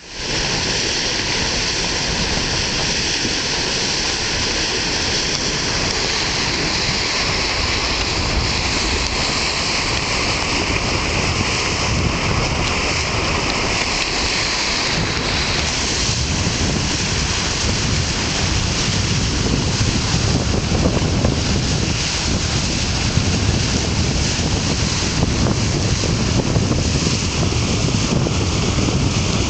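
Wind buffeting the microphone over the rush of water along the bow of a sailing schooner under way. It is a steady noise, and the low rumble grows stronger in the second half.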